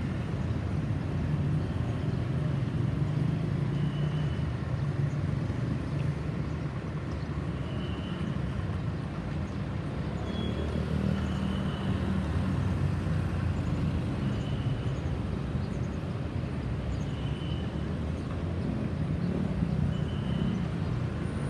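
Road traffic noise: a steady low rumble of vehicle engines and tyres, with no siren sounding.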